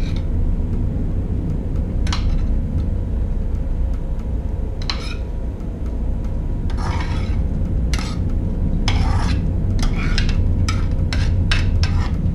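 A utensil stirring, scraping and knocking against a pot of soup as the shredded chicken is added, in scattered strokes that come faster in the last few seconds, over a steady low hum.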